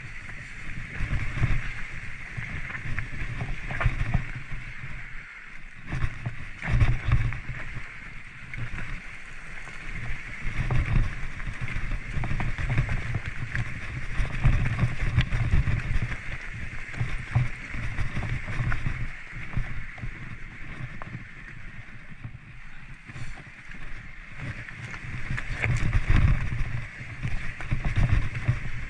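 Mountain bike rolling down a rough trail: wind buffeting the camera microphone as a fluctuating rumble, tyre noise over the ground, and scattered knocks and rattles from the bike over bumps.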